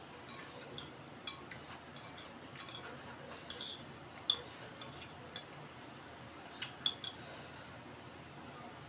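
Eating utensils clicking and clinking against a bowl during a meal of instant noodles: scattered light clicks, the loudest about four and about seven seconds in.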